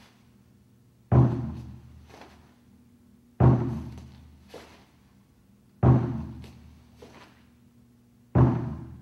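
A large drum struck once every two and a half seconds or so, four beats in all, each ringing and dying away: the drum count pacing each movement of a form. Fainter knocks sound between the beats.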